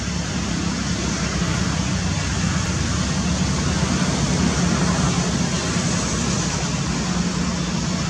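Steady rumbling background noise with a low hum and no distinct calls.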